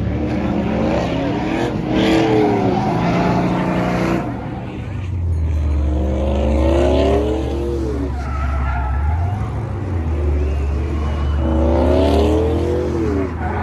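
Truck engine revved hard three times, each rev climbing and then falling in pitch, over a steady low rumble.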